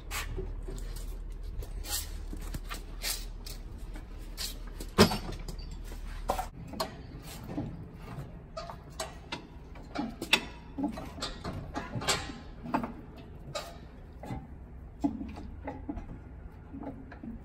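Scattered metal clinks and knocks as a GM 4104 bus transmission hanging on a lifting chain is shifted and guided into line with the engine; a sharp knock about five seconds in is the loudest. A low steady hum underneath stops about six and a half seconds in.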